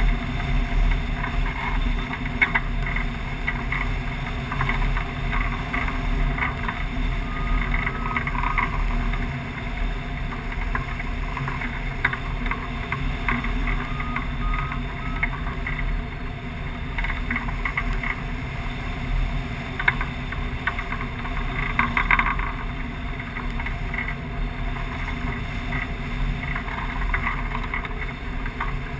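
Wind rushing over a hang glider's wing-mounted camera in flight, a steady low rumbling buffet on the microphone with occasional gusty flutters.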